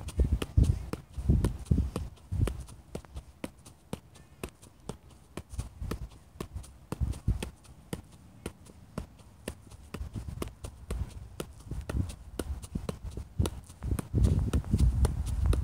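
Soccer ball being juggled: a steady run of light taps as foot and leg strike the ball, one touch after another without a break. Bursts of low rumble come near the start and near the end.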